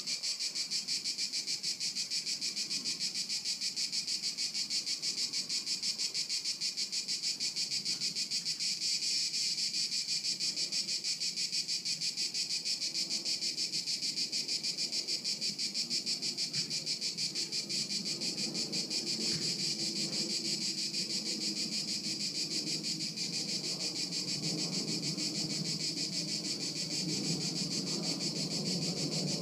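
A chorus of singing insects: a shrill, high buzzing that pulses rapidly and evenly, about four pulses a second, without a break. A faint low rumble grows underneath in the second half.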